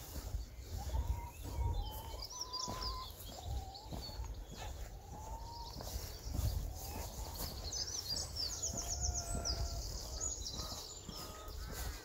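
Songbirds singing outdoors: clear whistled notes in the first few seconds and a fast, high trill about eight seconds in, over an uneven low rumble.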